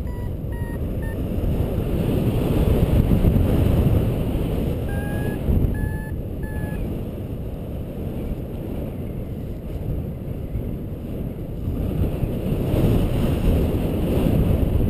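Wind rushing over the microphone in paraglider flight, with a paragliding variometer sounding short beeps: a few stepping down in pitch at the start and three more about five to six and a half seconds in. The vario's beeps mark rising air.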